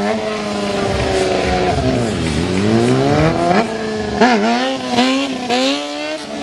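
Sport motorcycle engine revving under a stunt rider's throttle. The pitch dips and climbs about two seconds in, then comes in a string of quick rev blips through the second half as the bike is lifted onto its rear wheel.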